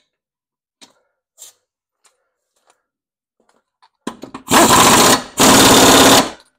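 Air impact wrench hammering the blade bolt tight on a John Deere LA145 mower deck spindle: a few short blips, then two long loud bursts with a brief pause between. Before it, light clicks of the steel blade and star washer being seated by hand.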